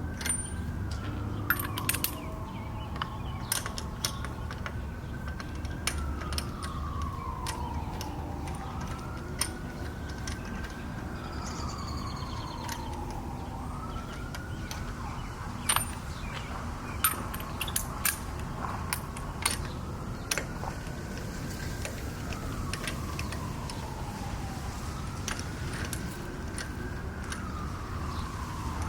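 A siren wailing, its pitch sliding slowly up and down and repeating every few seconds, over scattered sharp metal clinks and clicks of hand tools.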